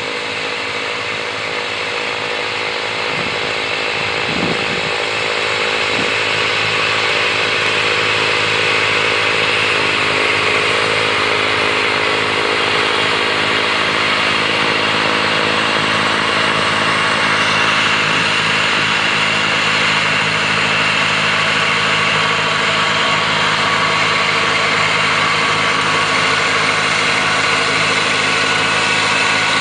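Kubota B3030 compact tractor's three-cylinder diesel engine running steadily under load, driving a front-mounted snowblower that throws snow from its chute with a steady hiss. The sound grows louder over the first several seconds as the tractor comes closer.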